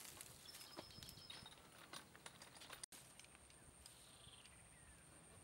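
Near silence: faint scattered clicks and taps of field equipment being handled, broken by a brief dropout about three seconds in, after which a faint steady high-pitched whine holds.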